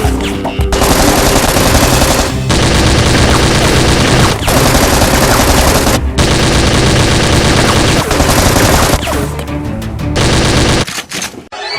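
Rapid machine-gun fire sound effects in long sustained bursts with short breaks between them, over background music; the firing drops away near the end.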